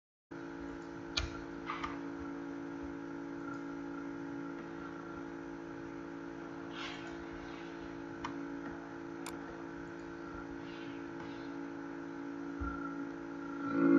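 Steady hum of a running computer, made of several fixed tones, with a few faint clicks; the loudest click comes about a second in.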